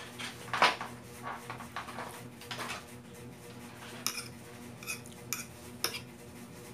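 A metal fork clinking and scraping against a ceramic plate while noodles are picked up and eaten. There is a loud clink about half a second in and a run of sharp clicks a little past the middle.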